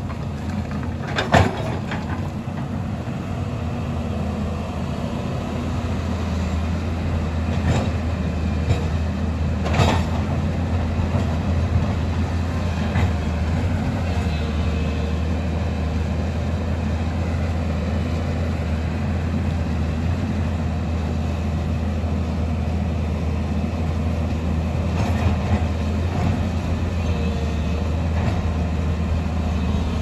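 Hyundai crawler excavator's diesel engine running steadily, with a few sharp knocks: one about a second in and two around eight and ten seconds in.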